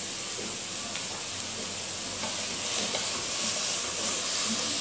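Shredded cabbage, carrot and capsicum sizzling steadily in hot oil in a non-stick pan as they are stir-fried over high heat. From about halfway through, a spatula stirs through the vegetables, adding soft scraping and ticks against the pan.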